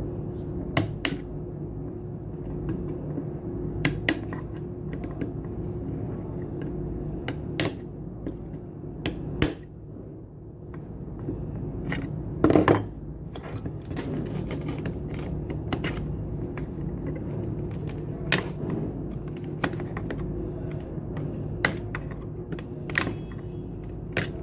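Metal tools clicking and tapping against the parts of a submersible pump being taken apart: a dozen or so sharp metallic clicks with a ringing edge, the loudest about halfway through, over a steady low hum.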